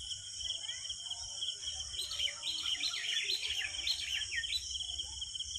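Birds chirping, with a run of short falling chirps in the middle, over a steady, high, pulsing insect trill.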